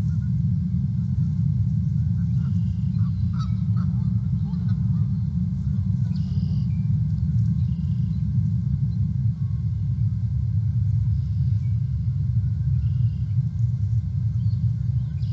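Steady low outdoor rumble, with a few short, thin bird calls about six seconds in, again around seven and thirteen seconds, and at the very end, and a few faint clicks a few seconds in.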